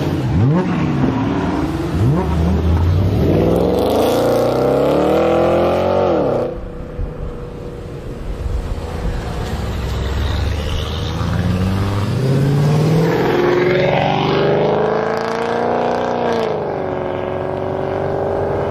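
High-performance car engines accelerating hard, the pitch climbing steeply and dropping back at each gear change. The sound cuts off abruptly about six seconds in, then another hard run of climbing revs and shifts follows, settling to a steadier engine note near the end.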